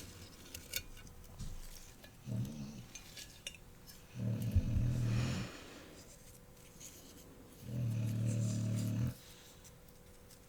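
A puppy snoring: three low, drawn-out snores about two, four and eight seconds in, the middle one the loudest.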